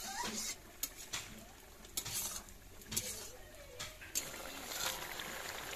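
Steel spatula scraping and clinking against a metal wok as okra and fish curry is stirred: irregular scrapes about once a second, with the curry sizzling underneath.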